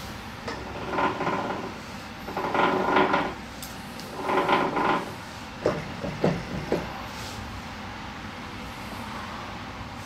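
Hands handling parts on a snowblower's drive cover: three short scraping, rustling bursts, then three light clicks.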